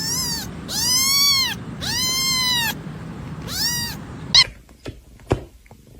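A cat meowing four times, each meow rising and then falling in pitch, the middle two longer. A few sharp taps or clicks follow near the end.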